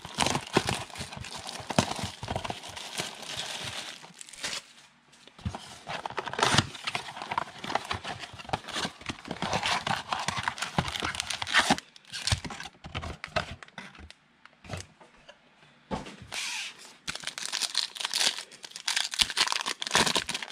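Wrapping of a box of Panini Prestige football cards being torn open and crinkled, in irregular bursts with short pauses and small clicks.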